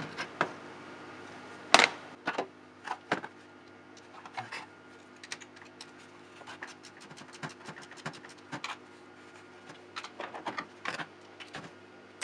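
Hand tools clicking and tapping on metal in short irregular runs, as bolts of the intake manifold on an Opel 1.6 engine are undone, with the engine off.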